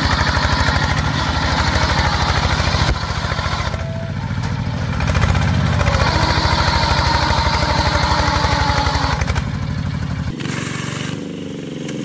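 A power tiller's 32-horsepower single-cylinder diesel engine running hard under load as the tiller pulls through deep mud, with a fast, even chugging. About ten seconds in the sound drops away suddenly to something much fainter.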